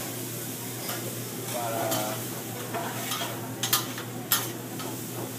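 Restaurant room noise: a steady hiss over a low hum. A brief voice comes in about two seconds in, and two sharp clicks follow near the end.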